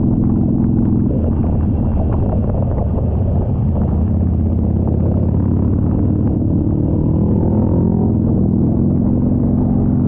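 Motorcycle engine running under way, a steady low note that rises in pitch about two-thirds of the way through as the bike speeds up.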